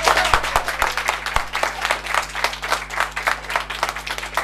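A crowd applauding, many people clapping at once.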